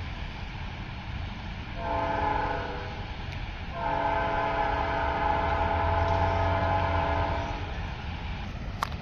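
Locomotive's Nathan P5A air horn sounding the end of a grade-crossing signal: a short blast about two seconds in, then a long chord of nearly four seconds, over the low rumble of the approaching train. A single sharp click near the end.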